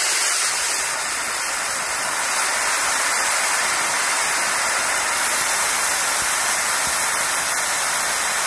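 Safety valve on the Merryweather steam fire engine's boiler lifted and blowing off steam in a loud, steady hiss: the boiler is at its blow-off pressure of about 85 psi.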